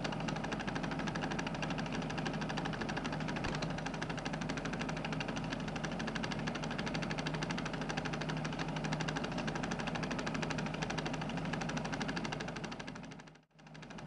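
Film projector running: a steady rapid mechanical clatter over a constant hum. It fades out to silence for a moment near the end and comes straight back.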